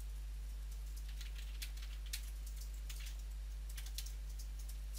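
Steady low mains hum on the recording, with a few faint scattered clicks.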